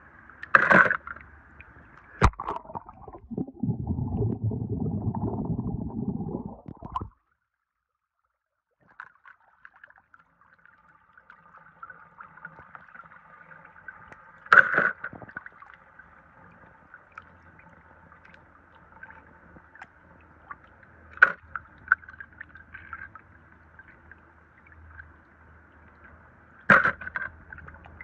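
Water gurgling and sloshing while wet die-cast toy cars are handled over a plastic basin, with several sharp clicks and knocks of the toys. A louder rush of water runs from about three to seven seconds in, then the sound cuts out for a couple of seconds before the sloshing resumes.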